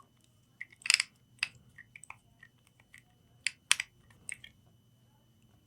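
Scattered sharp clicks and crackles, about a dozen and irregularly spaced and strongest around one second and near the four-second mark, as rosin flux is worked onto a laptop motherboard chip before reflowing it, over a faint steady high whine.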